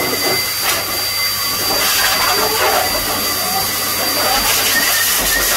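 Steady hiss of a hand-held shower sprayer spraying water onto a Labrador's coat in a grooming tub.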